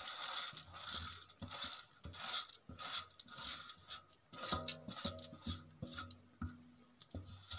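Dry vermicelli sliding off a steel plate into a pan of boiling water with a rustling hiss, followed by a run of light metallic clinks and taps from the steel plate and pan, some briefly ringing, about the middle.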